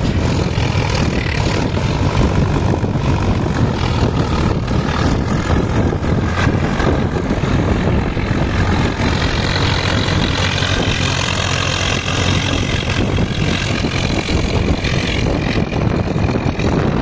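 Massey Ferguson 245 Smart 4WD tractor's diesel engine running steadily under load as it pulls a rotavator through flooded mud. A higher-pitched whine rises over it for several seconds in the second half.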